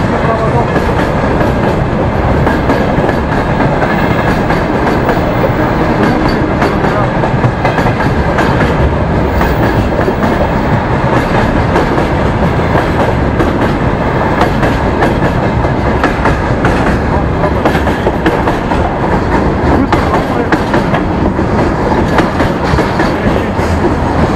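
Freight train wagons rolling steadily past, wheels clacking over the rail joints with no break.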